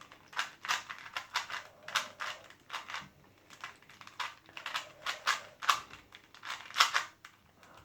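Rubik's Cube being turned quickly by hand, its plastic layers clicking and rattling in irregular bursts of several clicks a second.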